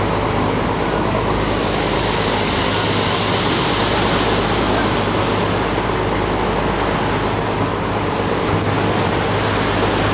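Surf washing and foaming against a small motor ship's hull, a steady rushing of water, over the even low hum of the ship's engine running.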